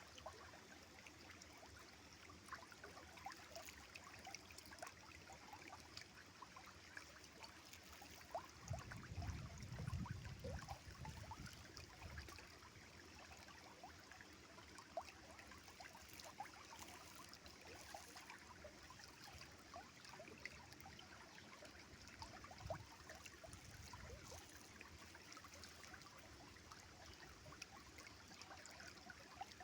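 Faint river water flowing and trickling, a steady rush with many small splashes and drips. A low rumble swells for a few seconds about a third of the way in.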